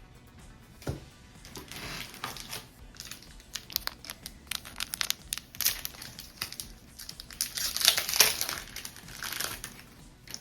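Foil booster-pack wrapper of trading cards crinkling and crackling as it is handled and opened, in a run of quick crackles that is loudest about eight seconds in.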